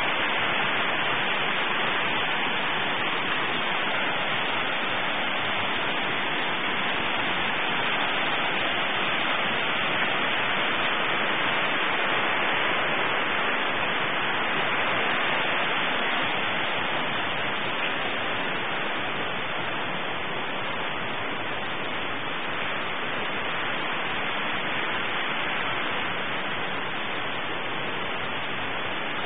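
Brook water rushing in a steady, even hiss.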